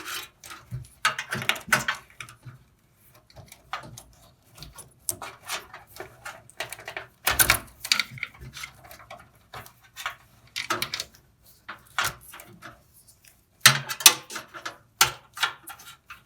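Wires and a ribbon cable being handled and wrapped around a cable bundle inside a desktop computer case: irregular rustling, clicks and light knocks, with short quiet gaps between them.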